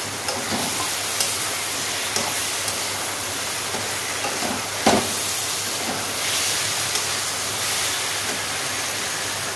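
Fish pieces and tomatoes sizzling in hot oil in an aluminium kadai, a steady hiss, while a metal spatula stirs and scrapes the pan. There are a few light clinks, with a sharper one about five seconds in.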